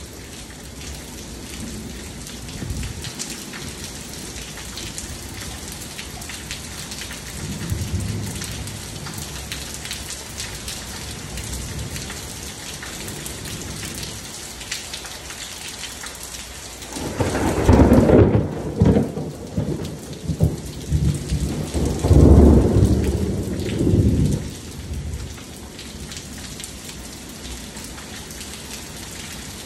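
Steady rain pattering on a concrete pool deck and pool. A long, loud rumble of thunder starts about halfway through and rolls on for several seconds with two peaks. Two fainter low rumbles come before it.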